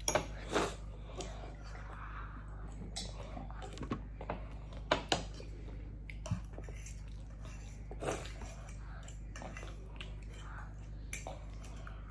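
Forks clinking and scraping on plates during a meal, mixed with quiet chewing: scattered short clicks, a few louder ones about five and eight seconds in.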